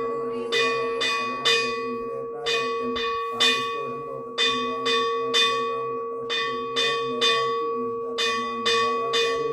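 Hindu temple bell ringing during a puja, struck in steady groups of three about half a second apart with a short pause between groups, each stroke ringing on into the next.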